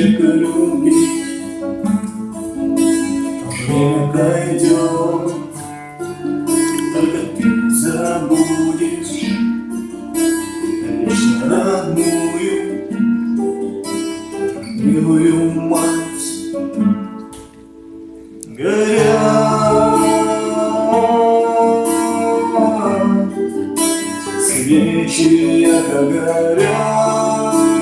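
A song with acoustic guitar and singing. About two-thirds through, the music dips briefly, then comes back fuller with long held notes.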